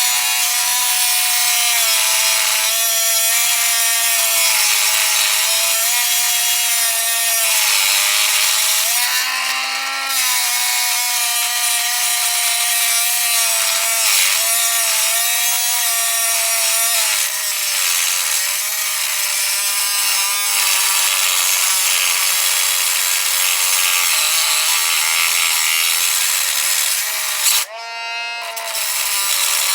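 A high-speed handheld power cutting tool grinding through a hardened steel padlock shackle, its motor whine steady but sagging in pitch at moments under load. Near the end the tool drops off sharply for a moment and spins back up.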